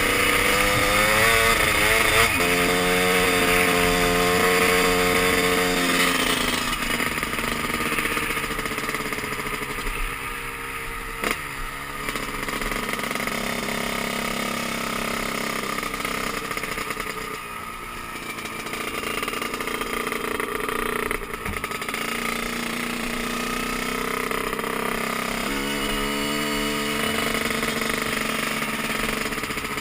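Dirt bike engine revving up and held at high revs for a few seconds, then dropping to lower, varying revs with the throttle, and revving up again near the end.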